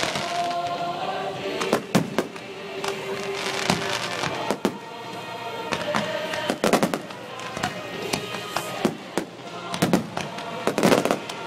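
Fireworks display: aerial shells bursting in a rapid series of bangs and crackles. The biggest booms come about two seconds in, around seven seconds in, and in a cluster near the end.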